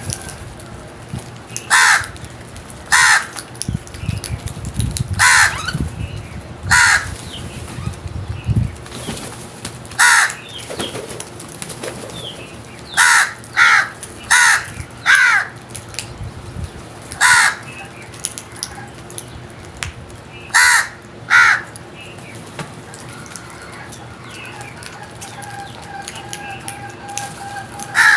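Crows cawing: about a dozen short, harsh caws at uneven intervals, some in quick pairs and triples. A low rumble runs under the first several seconds.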